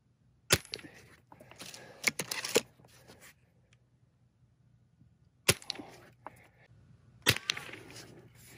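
Gamo Magnum .22 break-barrel air rifle firing, a single sharp crack about half a second in, followed by a couple of seconds of clattering and rattling. Two more sharp cracks come about five and a half and seven seconds in.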